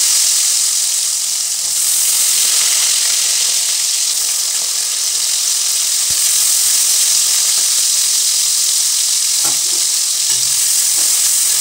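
Carrot and capsicum pieces frying in hot oil in a karahi: a loud, steady sizzle.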